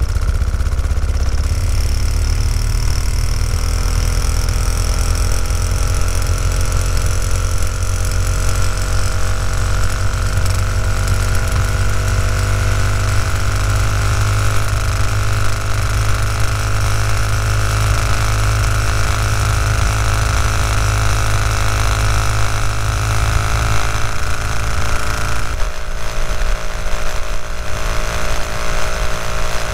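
A 1964 Velosolex moped's small two-stroke engine running under way, its pitch climbing over the first several seconds as it gathers speed, then holding steady. A heavy low rush of wind and road noise runs under it.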